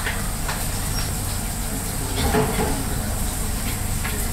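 Busy restaurant kitchen: a steady low hum with scattered clinks and knocks of dishes and utensils.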